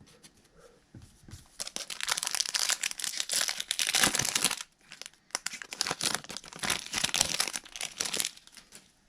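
Wrapper of a Topps baseball card pack being torn open and crinkled, in two spells of about three seconds each.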